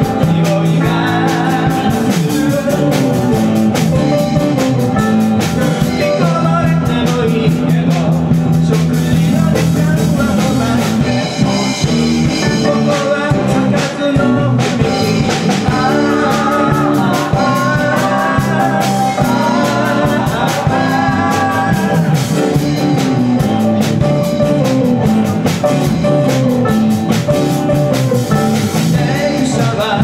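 Live band playing a rock-flavoured folk song: electric and acoustic guitars, electric bass and a drum kit, with a man singing at the microphone.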